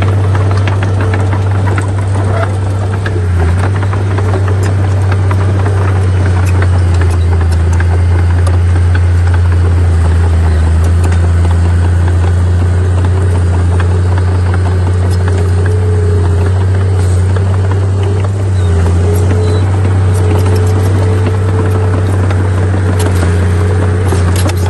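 Bulldozer's diesel engine running steadily with a deep drone, with many small clinks and rattles throughout.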